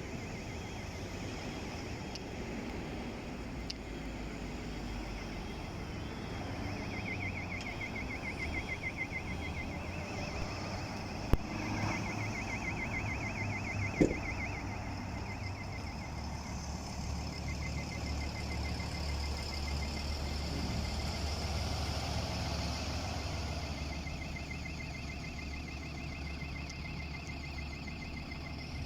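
Bus engine idling with a steady low hum, while a rapid high-pitched pulsing beep comes and goes over it. Two sharp knocks sound near the middle.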